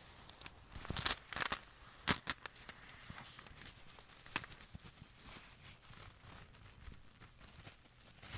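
Black agate rune stones clicking against each other as a hand rummages in a velvet pouch, with soft fabric rustling and scattered sharp clicks, some in quick clusters.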